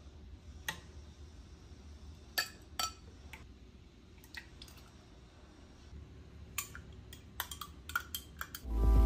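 A ladle and spoon clinking against a glass bowl and a drinking glass as a creamy sago salad is ladled out and stirred, in sparse single ringing clinks with a quick run of them near the end. Music comes in just before the end.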